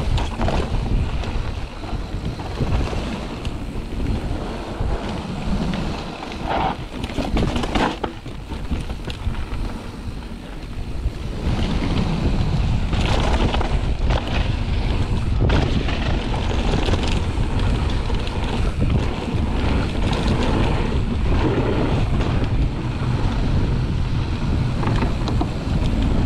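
Wind rushing over the camera microphone and mountain bike tyres rolling down a dirt trail, with scattered knocks and rattles from the bike over bumps. The rush gets louder about halfway through.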